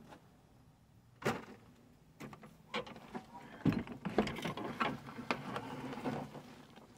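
Uneven mechanical clicks and knocks: a sharp knock about a second in, then clicks and rattles that grow busier, with a low thump around the middle.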